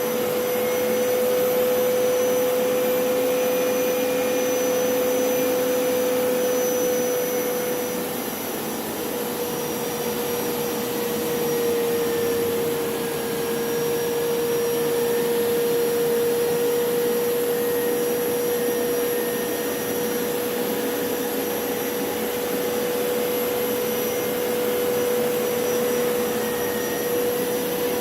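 Hoover PowerScrub Elite upright carpet cleaner running, its suction motor giving a steady whine over a broad rushing hiss; the whine drops a little in pitch about ten seconds in.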